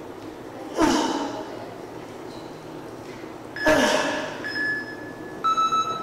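A man's forced, straining breaths on knee push-up reps, twice, the breaths of someone near exhaustion late in a Tabata set. In the second half a phone interval timer beeps, ending in a run of quick beeps that typically marks the end of a 20-second work interval.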